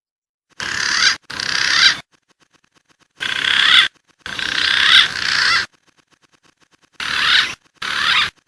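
Green pigeon (punai) calling: six bursts of wavering whistles that bend up and down in pitch, each half a second to a second and a half long. Each burst starts and stops abruptly.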